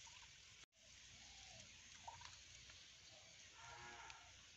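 Near silence: faint background hiss, with the sound cutting out completely for a moment a little under a second in.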